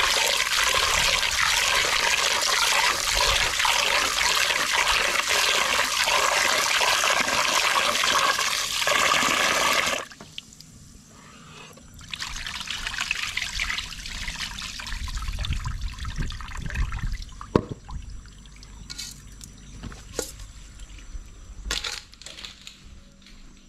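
A stream of water splashing into a rice cooker's inner pot while a hand swishes the rice, washing it; the stream stops suddenly about ten seconds in. Then the cloudy rinse water is poured off, followed by a few sharp knocks.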